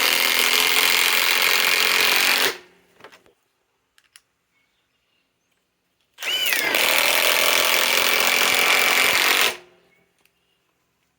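Milwaukee M18 Fuel Gen 2 mid-torque impact wrench hammering 5-inch lag screws in, twice. The first run ends sharply about two and a half seconds in. The second starts about six seconds in and lasts about three and a half seconds before cutting off.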